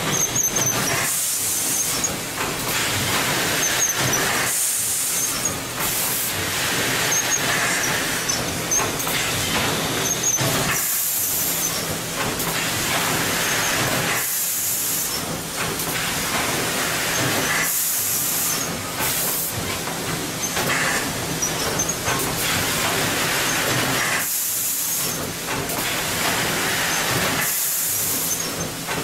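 Automatic bag-packaging machine running steadily, with a burst of compressed-air hiss from its pneumatic system about every three and a half seconds as it cycles through each bag.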